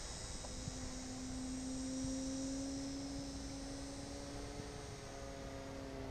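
Electric motor and propeller of a TechOne Air Titan RC plane flying high overhead, heard as a steady hum that rises a little in pitch and then slowly falls.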